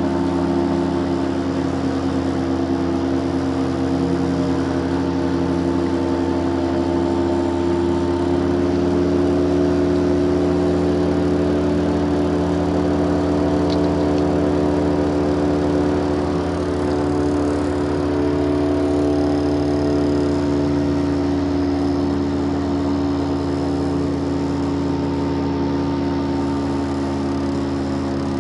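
Motorboat engine running steadily, a continuous drone with a slight change in pitch a little past the middle.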